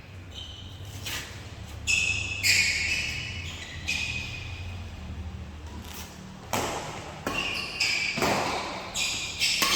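Badminton rally: rackets striking a shuttlecock several times at irregular intervals, with short high squeaks of sports shoes on the court floor between the hits.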